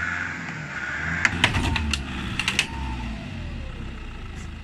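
Nissan Patrol's engine running low and steady while pushed against the car, with a cluster of sharp cracks and clicks about a second in.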